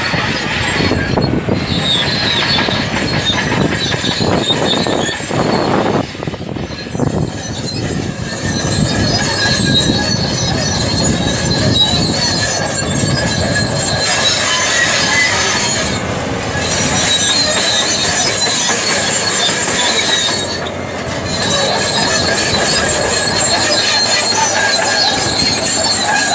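Caterpillar crawler bulldozer working: its diesel engine running under load while the steel tracks squeal and clank as it pushes earth. The high squeal runs steadily throughout, dipping briefly twice.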